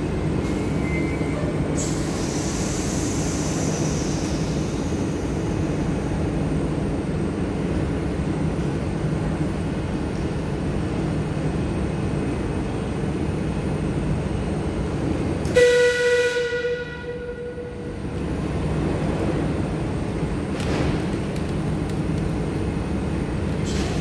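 Madrid Metro Serie 5500 electric train coming to a stand at a platform, with a steady low hum from its equipment and a hiss for a couple of seconds near the start. About two-thirds of the way through, a loud short tone sounds and fades, and the hum dips briefly after it.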